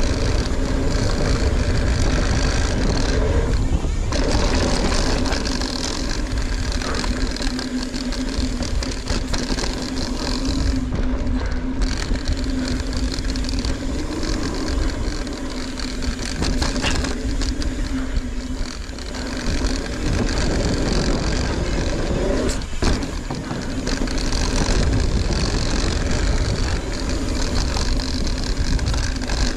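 Mountain bike ridden down a dirt trail: wind and tyre rumble, with the steady buzz of an Industry Nine Hydra rear hub freewheeling while the rider coasts. The buzz cuts out briefly a couple of times.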